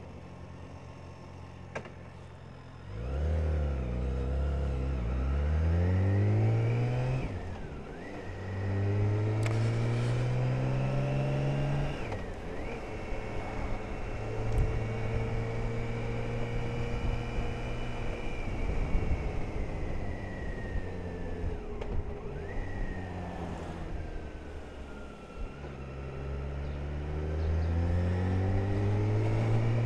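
BMW K1600's inline six-cylinder engine idling, then pulling away about three seconds in and accelerating up through the gears, its pitch rising in steps with a short drop at each gear change. It then runs fairly steadily with the pitch slowly falling as it eases off, and accelerates again near the end.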